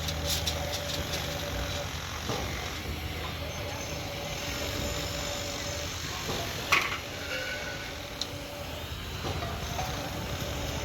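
Heavy earthmoving machine's engine running steadily, with a sharp clank about seven seconds in.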